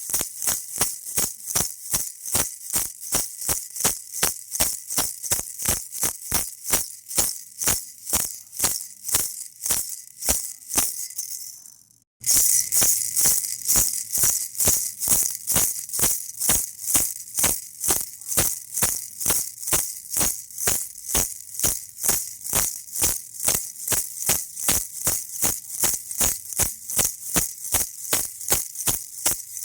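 Baby rattle shaken in a steady rhythm, about two to three shakes a second. The shaking fades out about ten seconds in, stops for a moment, then starts again at full level.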